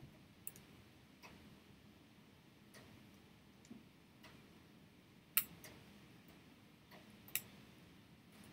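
Faint, irregular clicks of metal tweezer tips tapping and catching on the small metal parts around an iPhone 6's camera flex connector. Two louder clicks come after about five and seven seconds.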